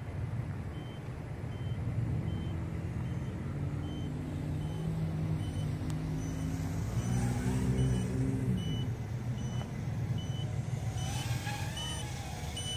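Low-battery alarm beeping: short high beeps repeating a little faster than once a second, the warning that the quadcopter's LiPo pack is run down to about 10.4 volts. Under it runs a low rumble, and from about 11 s in a wavering whine.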